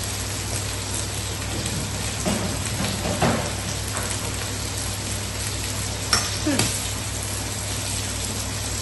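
Chicken thighs sizzling steadily as they fry in a pan, with a few short scrapes of a spoon mixing sauce in a bowl.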